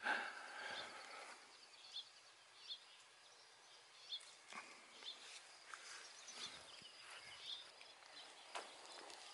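Faint, scattered bird chirps, short calls coming every second or so, with a louder brief noise right at the start.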